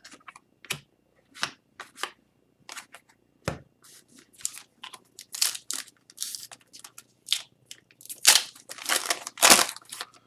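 Upper Deck hockey card packs and cards being handled: irregular crinkling, tearing and rustling of pack wrappers and cards, busier in the second half.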